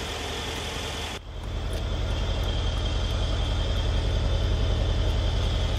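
Mercedes-Benz CL63 AMG's 5.5-litre twin-turbocharged V8 idling with a steady low rumble. About a second in it dips briefly, then comes back louder.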